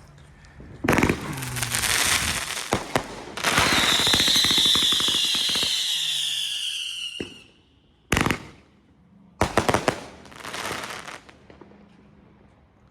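Large consumer fireworks cake (multi-shot aerial repeater) firing: rapid crackling shots, then a loud hiss with a falling whistle for about four seconds, then a few sharp bangs and a last crackle that fades out near the end.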